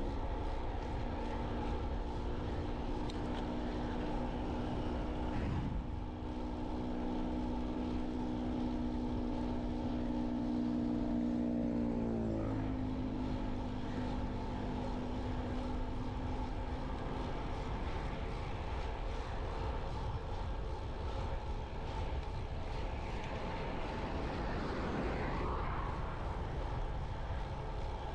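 Motorcycle engine running at a steady note under heavy wind rumble on the microphone while riding. About twelve seconds in the engine's pitch drops quickly as it slows, and after a few more seconds it fades under the wind noise.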